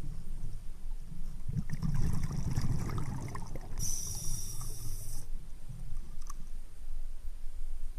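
Underwater sound picked up by a submerged camera: a steady low rumble of moving water, thicker for a couple of seconds, then a brief high hiss about four seconds in.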